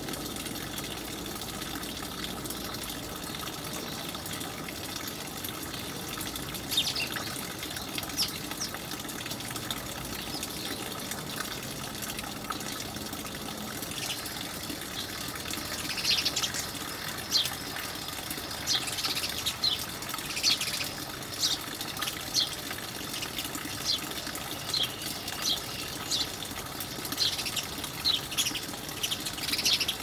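House sparrows chirping: short, sharp chirps, a few about a quarter of the way in, then frequent and overlapping through the second half, over a steady rushing background noise.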